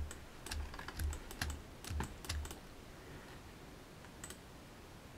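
Computer keyboard keys and mouse buttons being clicked, a quick irregular run of clicks with dull knocks over the first two and a half seconds, then one more click later on.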